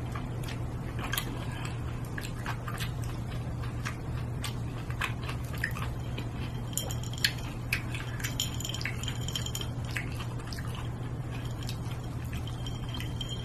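Close-up eating sounds: chewing and small wet mouth noises with scattered soft clicks, over a steady low hum, and a sip from a glass near the end.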